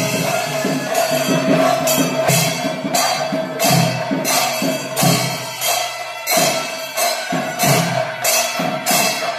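Percussion ensemble playing a steady rhythm: bright cymbal strokes about twice a second with drum beats, over a continuous held tone.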